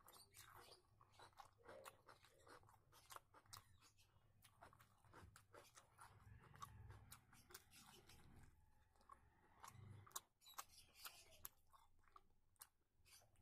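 Faint close-miked chewing of a person eating rice and curry by hand, with many small wet mouth clicks.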